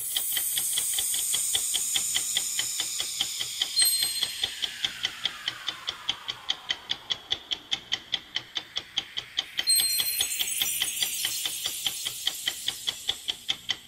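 Clock-ticking sound effect of a countdown timer, an even run of sharp ticks about four a second. A bright ding sounds about four seconds in and again near ten seconds, with a falling sweep after the first and a rising sweep after the second.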